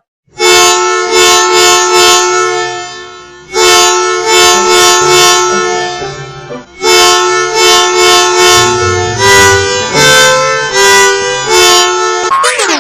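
Multi-tone musical bus horn sounding three long blasts of a two-note chord, the third blast stepping through a short tune. A fast, even beat of clicks runs behind it.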